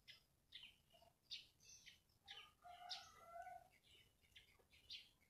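Faint birds chirping: a scatter of short, high chirps and a few brief held notes, irregularly spaced.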